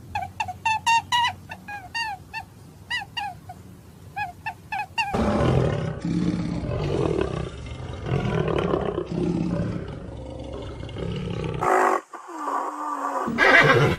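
A run of short, high squeaky chirps, a few a second, for about the first five seconds. Then a big cat's rough roaring and growling starts suddenly and runs for about seven seconds, followed by a short gliding whine and a loud burst near the end.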